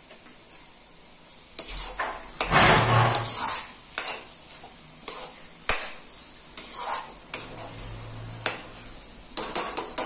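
Metal slotted spatula stirring and scraping cooked bottle gourd and chana dal around a metal kadhai: irregular scrapes and clinks starting about a second and a half in, over a low steady hiss.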